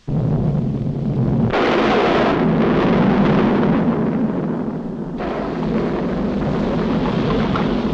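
Cartoon sound effect of a volcanic eruption: a loud rumble that breaks in suddenly, with a rushing hiss over it from about a second and a half in until about five seconds, then a continuing low rumble.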